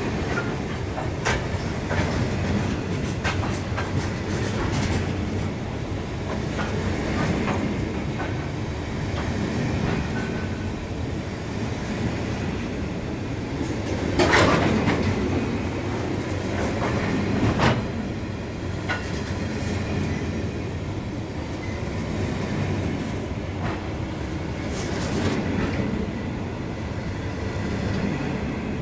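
Grain hopper wagons of a freight train rolling past, a steady rumble with wheels clacking over the rail joints. Two louder clanks come about halfway through.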